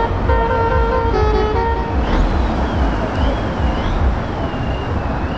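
A truck's musical horn plays a short tune of stepped notes over the low rumble of heavy diesel trucks pulling away. After about two seconds the horn stops and a high, wavering whistle-like tone glides up and down over the engine rumble.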